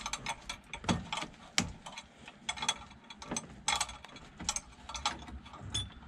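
Chrome ignition switch bezel of a 1966 Ford Mustang being twisted off by hand while the spring-loaded switch is pushed in from behind: a run of irregular small clicks as it turns.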